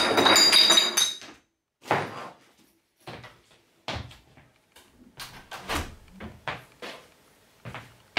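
A door being opened, with a squeaky rattle over the first second, then a thump about two seconds in and a run of short knocks and bumps as someone moves about the room.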